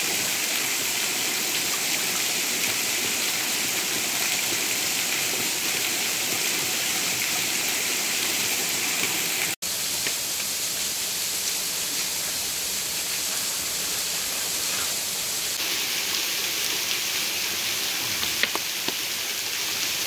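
Waterfall: a steady rush of falling water, broken by a split-second gap about halfway through.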